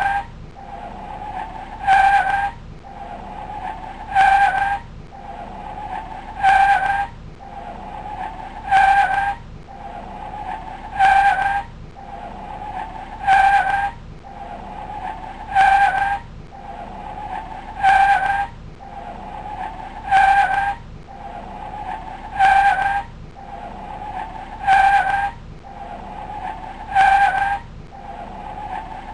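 Car sound effect of the 2014 Volkswagen Scirocco R: a steady squealing tone swells and breaks into a loud, harsh burst about every two and a quarter seconds. The same cycle repeats identically, as a loop does.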